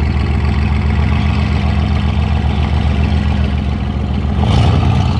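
Mercedes-AMG GT S's twin-turbo 4.0-litre V8 idling loudly through a straight-pipe exhaust, then a short throttle blip about four and a half seconds in.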